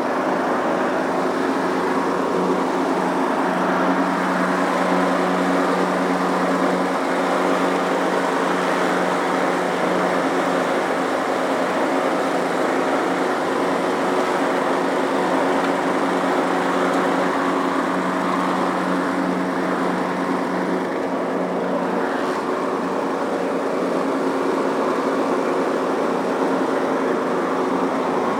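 Riding lawn mower engine running steadily at mowing speed, with the cutting blades engaged.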